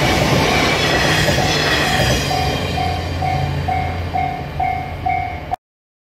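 A passenger train's coaches roll past with steady wheel and rail noise that slowly fades. Over it a railroad crossing's bell rings about twice a second, growing clearer from about halfway. Everything cuts off suddenly near the end.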